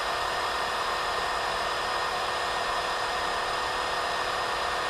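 Hot-air rework station blowing a steady stream of air: an even, unbroken hiss with a faint steady hum in it.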